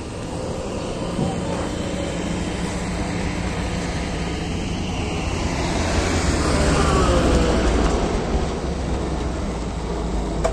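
Cars and pickup trucks driving slowly past on a dirt road: steady engine rumble, swelling about six seconds in as a vehicle passes close.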